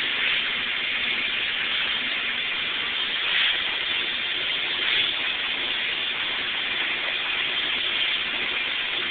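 Steady machinery noise of a bakery bread line, with a Formost wrapper running loaves of sweet bread. It is a continuous mechanical hiss with a faint hum, swelling briefly a couple of times.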